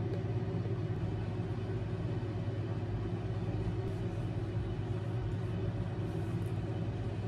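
A steady low hum with no change in level or pitch, like a small motor or fan running.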